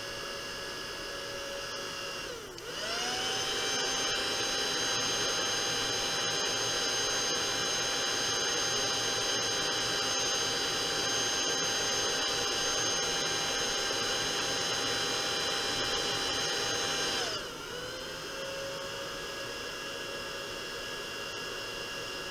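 A small electric motor tool running with a steady whine. About two and a half seconds in its pitch dips and then climbs to a higher, louder speed, which it holds until about three-quarters of the way through before dropping back to the lower tone.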